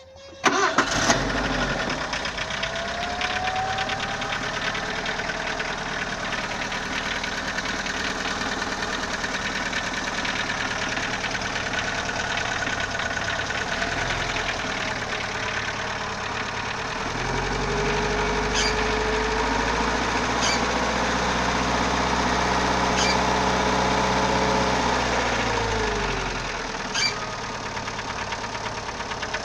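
Ford CHT four-cylinder engine starting about half a second in, then idling with a noise that the owner cannot trace after a valve adjustment, a new timing belt and a check of the bottom-end clearance. It is revved up and held from about 17 s to 26 s, then drops back to idle, with a few sharp clicks along the way.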